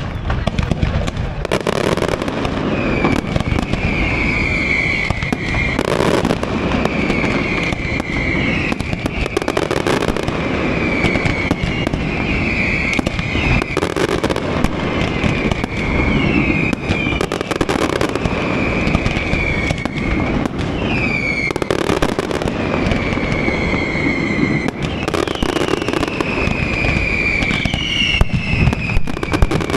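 Aerial fireworks display: a continuous run of bangs and crackles, with high whistles that slide in pitch every second or two.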